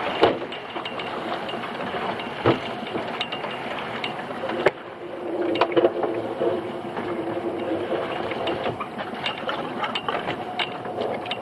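Mechanical clatter and ratcheting on a small fishing boat, over a steady engine hum, with sharp knocks about 2.5 s and about 4.7 s in.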